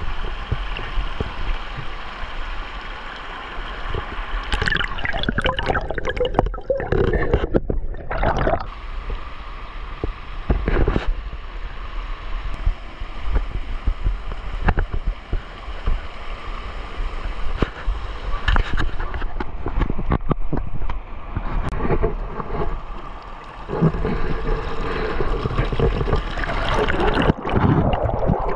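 Creek water flowing and gurgling, under a steady low rumble and scattered short knocks.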